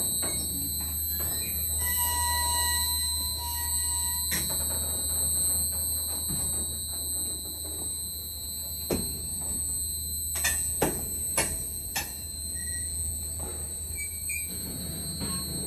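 Covered hopper cars rolling slowly past on the rails with a steady low rumble. A wheel squeal of about two seconds comes near the start, and a run of sharp metallic clanks comes about nine to twelve seconds in.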